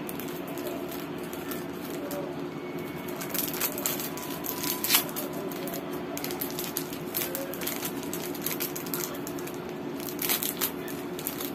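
Thin plastic packaging and a flexible magnetic paper-doll sheet crinkling and crackling as they are handled. The crackles come in scattered spells: the sharpest is about five seconds in and another cluster comes near the end. A steady low hum runs underneath.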